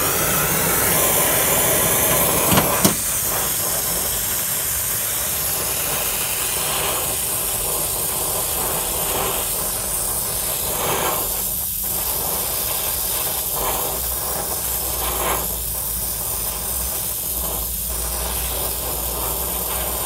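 Oxy-fuel brazing torch burning with a steady hiss as it heats a copper refrigerant line. Two sharp clicks come about two and a half to three seconds in.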